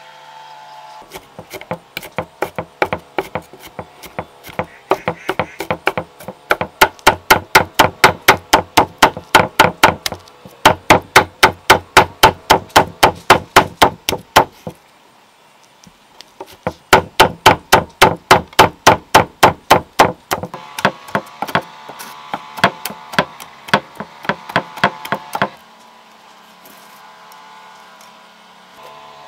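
Rapid, steady strikes on wood, about four a second. They come in two long runs with a short pause near the middle and stop a few seconds before the end.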